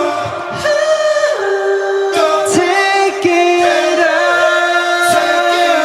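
Layered pop vocals singing long held notes in close harmony, with little instrumental backing underneath.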